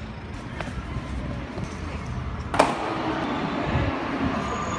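A plastic cruiser skateboard's wheels rolling over hard ground, a steady low rumble, with one sharp clack a little past halfway.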